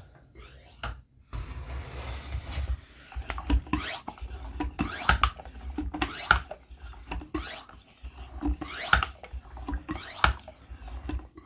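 Close handling noise: a low rumble with rustling, scraping and many light clicks and knocks, as of hands working in and around a plastic enclosure and feeding cup.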